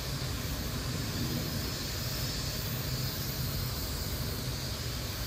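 Steady background noise: a low rumble under an even hiss, with no distinct sound standing out.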